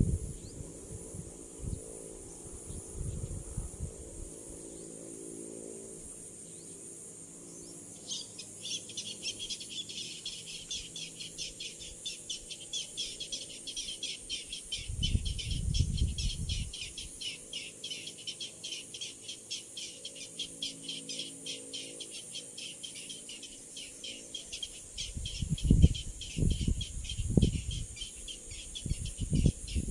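Insects calling: a steady high-pitched hum, joined about a quarter of the way in by a fast, evenly pulsing chirr that keeps going. A few low thumps come midway and near the end.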